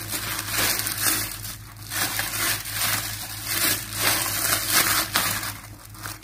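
A plastic bag worn as a glove crinkles and squishes as a hand kneads and squeezes soft yeast dough in a stainless steel bowl. The strokes are uneven, with short lulls.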